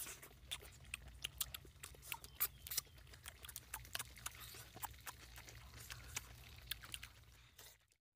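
Close-up wet chewing and lip-smacking of people eating, a quick irregular run of sharp smacks and clicks over a low hum. It cuts off to silence near the end.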